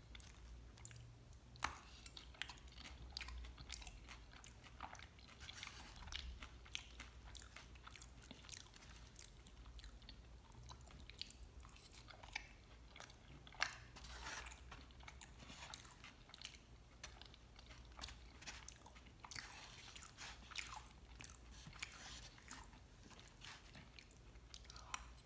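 Faint close-up chewing of chilaquiles, sauced tortilla chips, with soft crunching: many short, irregular clicks.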